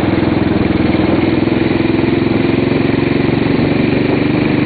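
Cruiser motorcycle's engine running steadily while riding at an even throttle.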